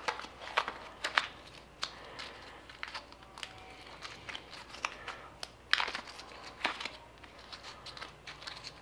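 A small sheet of paper being handled and folded around a drill bit by hand: irregular crinkling rustles and small clicks, a few louder ones scattered through.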